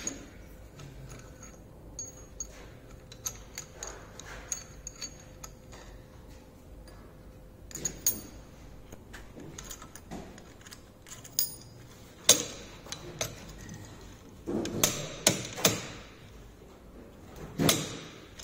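Slide-hammer puller fitted to the rotor shaft end of a Tesla Model S drive motor: light metal clinks as the jaws and weight are handled, then a sharp metal knock about two-thirds in, several more knocks in quick succession shortly after, and one more near the end.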